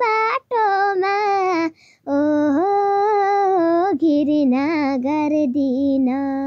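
A young girl singing a Nepali song, holding long notes with vibrato in phrases of one to two seconds, with a brief breath about two seconds in.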